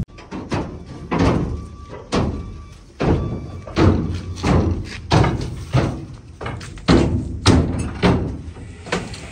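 Heavy goods being loaded onto a truck bed: a string of irregular thuds, one or two a second, as labourers drop the load in.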